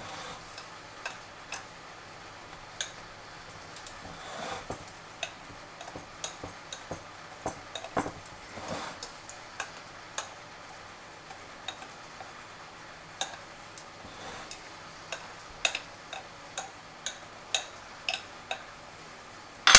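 A metal fork pressed into pie pastry, its tines clicking against the pie dish beneath in many light, irregular clicks, about one or two a second, with a louder clink at the very end.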